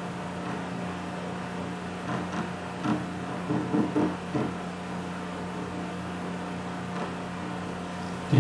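Steady low hum of room or equipment noise, with a few faint brief sounds about two to four seconds in.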